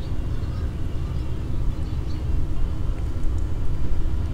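Wind rumbling on an action camera's microphone: a steady low noise that rises and falls unevenly, with a few faint high chirps above it.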